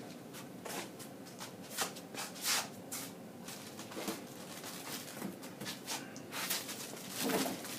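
Scattered soft rustles and light knocks from kit parts and their packaging being handled and set down.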